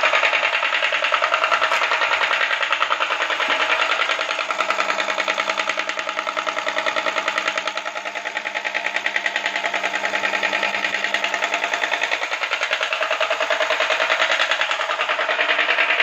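Belt-driven high-pressure plunger pump and its single-phase electric motor running, giving a steady, rapid, even pulsing clatter.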